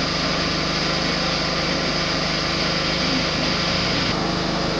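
A small engine running steadily: an even, unbroken drone.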